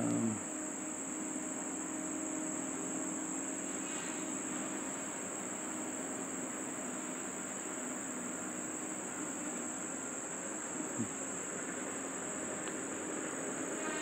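Insects chirring in a steady, high-pitched chorus.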